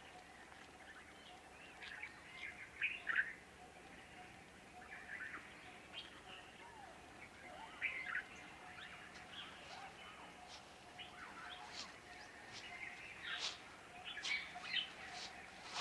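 Wild birds chirping and calling intermittently over a faint forest background, the calls coming more often near the end.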